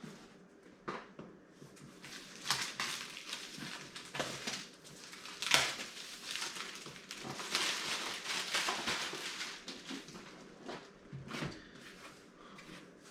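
Handling noises from a PC power supply and its packaging: scattered rustles, knocks and clicks, the sharpest about two and a half, four and five and a half seconds in.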